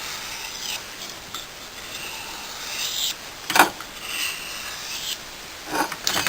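Steel knife blade being drawn across the wet 1,000-grit side of a Japanese water stone: three gritty rubbing strokes of about a second each. A sharp knock about halfway through, the loudest sound, and two more knocks near the end.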